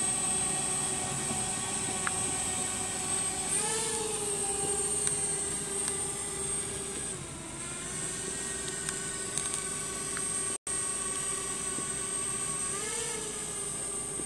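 Drone's motors and propellers running with a steady whine, rising in pitch briefly about four seconds in and again near the end, and dipping once in the middle as the throttle changes. The sound cuts out for an instant about two-thirds through.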